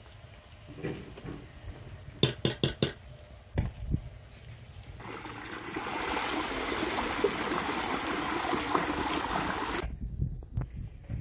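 A few sharp clicks about two seconds in, then water gushing from a pipe spout into a concrete trough as a peeled potato is rinsed under it. The water runs for about five seconds and cuts off suddenly near the end.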